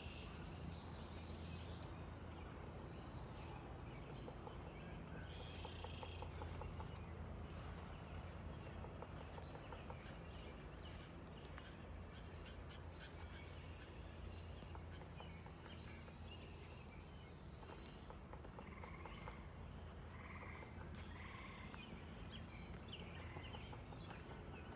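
Nature ambience: scattered bird calls and chirps over a steady low hum.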